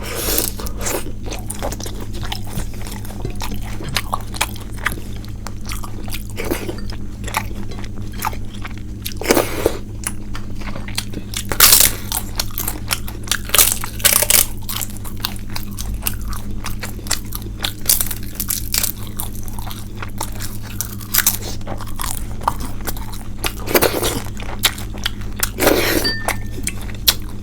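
Close-miked eating: irregular chewing and mouth sounds with sharp crunches from time to time, over a steady low hum.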